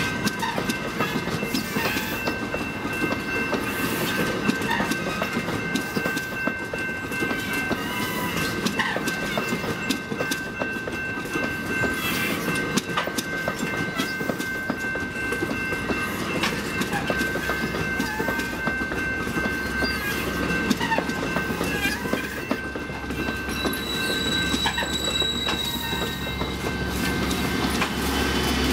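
AMT commuter train of bilevel passenger cars rolling past close by: wheels clacking over rail joints, with a steady high-pitched ringing. From about two-thirds in, the diesel locomotive pushing at the rear draws near, and its engine drone grows in the low end.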